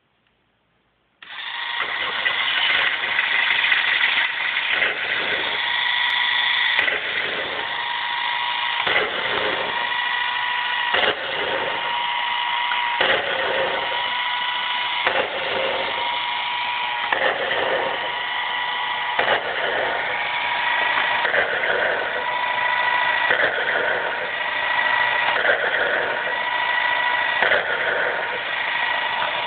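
Airfix model combustion engine kit, its small battery-driven electric motor turning the plastic crank, pistons and valves, switched on about a second in and then running with a steady high whine. The whine dips regularly, about once every second or two.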